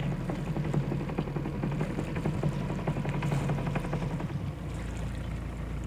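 A sailboat's inboard engine running steadily with a low, even pulsing, easing slightly a little past four seconds in.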